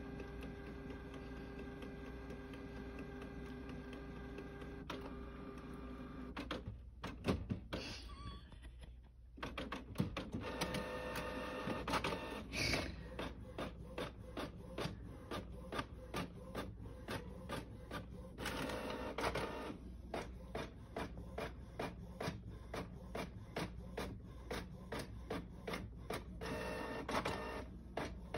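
Printer running: a steady mechanical whine for the first several seconds, then, after a brief lull, a rhythmic clacking of the print mechanism, about two strokes a second.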